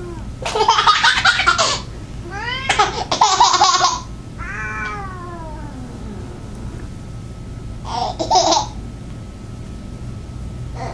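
A toddler laughing and squealing in loud bursts: about half a second in, again around three seconds, and once more near eight seconds.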